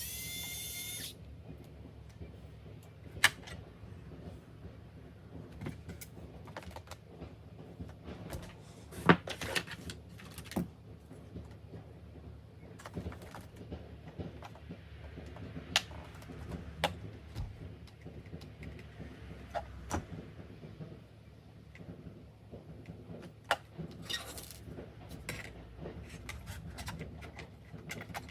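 Small clicks, taps and light metallic clinks of laptop screws and panels being handled during disassembly. A small electric motor whines briefly at the start, rising in pitch, then holding steady until it stops about a second in.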